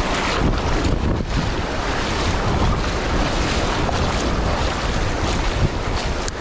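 Wind buffeting the microphone over surf washing onto the beach: a steady rushing noise.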